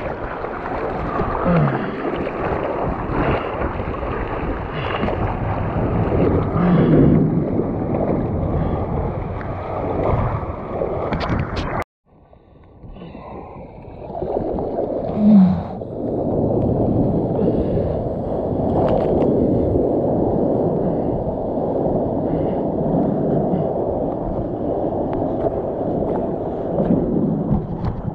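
Steady rush of moving river water with wind buffeting the microphone. The sound cuts out for a moment about twelve seconds in, then returns.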